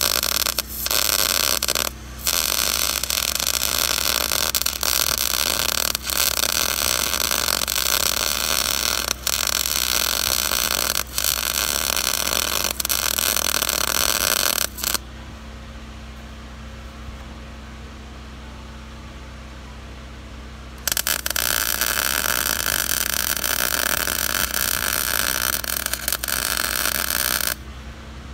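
Lincoln 140 MIG welder running a bead on steel: a steady crackling arc hiss for about fifteen seconds, broken twice briefly near the start. It stops for about six seconds, leaving only a low steady hum, then runs a second weld of about six seconds.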